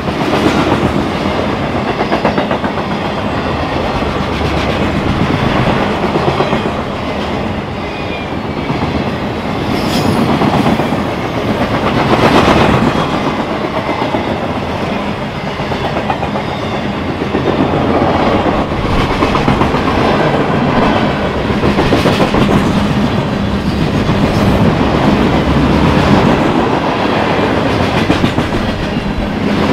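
Train rolling past, its car wheels clacking over the rail joints in a steady run of clicks and rumble.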